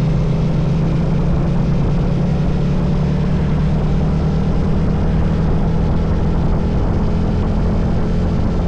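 Engine running steadily at a constant cruising speed, with a low rough rumble of wind buffeting on the camera's microphone.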